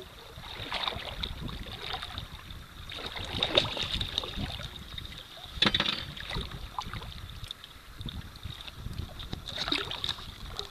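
Wind buffeting the microphone with water lapping at a flats skiff's hull, and a few brief sharp splashes, the loudest about three and a half and nearly six seconds in.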